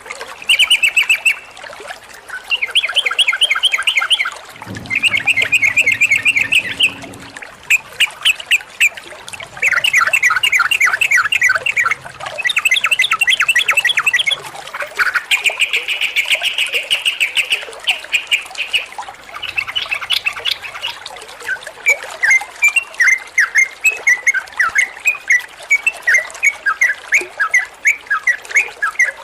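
Yellow-vented bulbul singing a fast, chattering song in bursts of a second or two of rapidly repeated notes, with short pauses between phrases. In the last third the notes come more separated and choppy.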